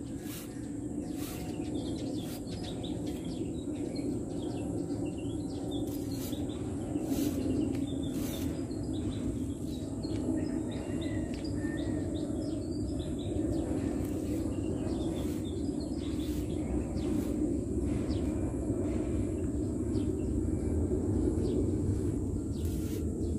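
Outdoor ambience: a steady low rumble with faint bird chirps and scattered soft clicks.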